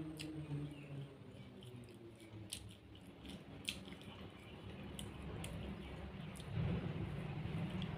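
Close-up chewing of food with a handful of sharp wet mouth clicks, together with the soft squish of fingers working through a plate of cooked rice.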